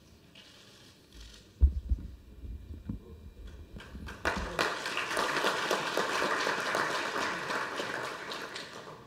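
Audience applauding, starting about four seconds in and fading near the end. Before it, a few low thumps, the loudest about a second and a half in.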